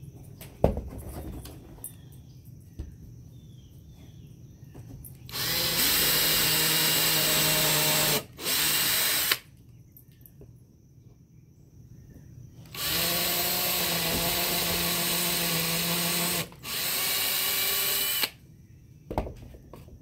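Ryobi cordless drill running at a steady speed as its bit bores into a wooden board, in two runs of about four and five seconds, each with a brief stop partway through. A sharp click or knock comes about a second in and again near the end.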